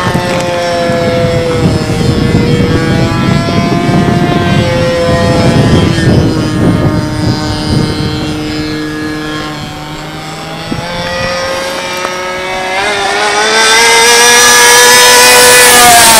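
Model-plane engine of an RC P-51 Mustang in high-speed flight. Its whining note slides lower as the plane moves away and stays steady for a while, with rumbling wind noise on the microphone in the middle. Near the end it grows loud and rises in pitch as the plane comes in for another close pass, then drops sharply as it goes by.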